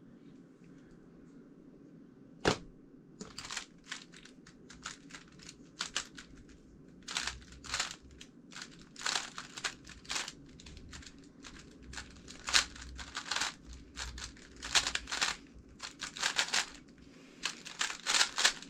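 GAN356 X 3x3 speedcube with yellow springs and green magnets being turned fast through a solve: a long run of quick plastic clicks and clacks from the layer turns, coming in bursts with short pauses. A single sharp click sounds about two and a half seconds in, before the turning starts.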